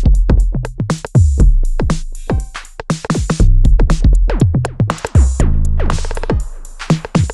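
Elektron Analog Rytm MKII analog drum machine playing one of its factory patterns. Deep kick drums fall in pitch as they decay, under a fast run of hi-hat ticks and clicks.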